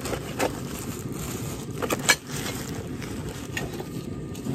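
A propane heater running with a steady low rushing noise, with a few light knocks and rustles of cardboard parts boxes being handled, the sharpest about two seconds in.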